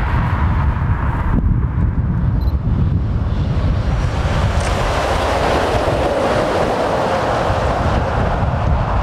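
Articulated lorry with a tipper trailer approaching and passing, its engine and tyre noise building to a peak about six or seven seconds in, then easing as it moves away. Heavy wind buffets the microphone throughout.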